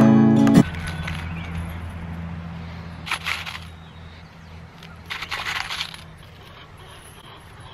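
Metal fence staples jingling in a cardboard box as a handful is picked out: one short rattle about three seconds in and a longer one a little after five seconds. An acoustic guitar tune stops within the first second.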